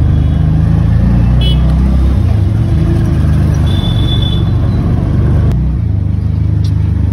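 Auto-rickshaw engine running, heard from inside the open cabin, with street traffic around it. A short high beep sounds about four seconds in, and the engine note drops at about five and a half seconds.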